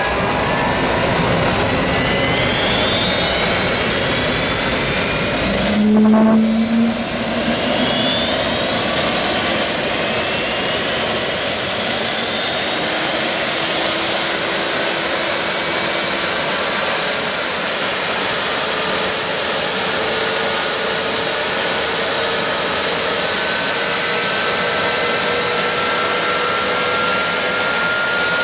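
Jet dragster turbine engines running at the starting line. A high whine climbs steadily in pitch over about twelve seconds as an engine spools up, then holds steady over a constant rushing hiss. A brief louder burst comes about six seconds in.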